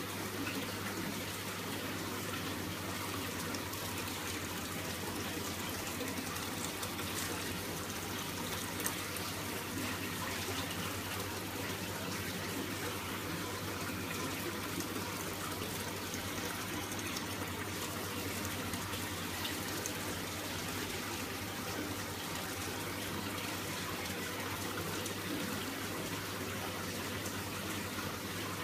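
Steady running, splashing water in an aquarium, with a low steady hum underneath.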